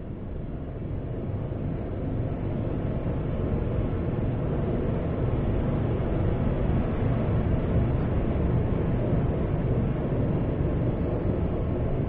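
Low, rumbling noise drone from an experimental noise improvisation, swelling gradually over the first few seconds and then holding steady.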